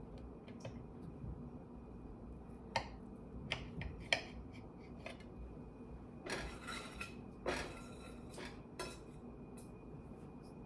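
Knife clinking and scraping against a dish while slicing cheesecake: a few sharp metallic clinks, then two longer scrapes as cake is wiped off the blade, and a last clink near the end.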